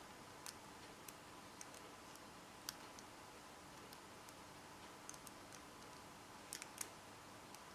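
Faint, scattered clicks of a combination padlock's number wheels being turned a step at a time, a handful at irregular intervals with a small cluster near the end. The shackle is held under tension so that a binding wheel can be felt as the dials are worked through.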